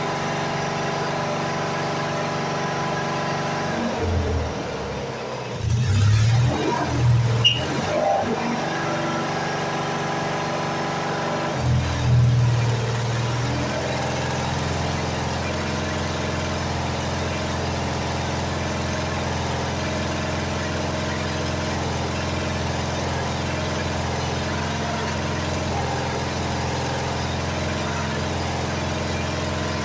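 Engine of a Lincoln engine-driven welder running steadily. About four seconds in, the steady note is broken by a few seconds of uneven low thumps. From about twelve seconds it settles into a different steady, deeper running note.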